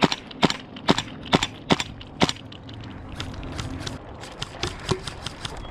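Airsoft guns firing single shots: six sharp cracks about two a second over the first two seconds, then a scatter of fainter shots.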